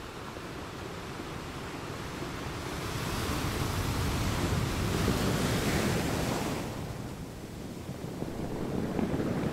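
Ocean waves washing onto a shore: one wave swells up, peaks about halfway through and draws back, and the next starts to build near the end.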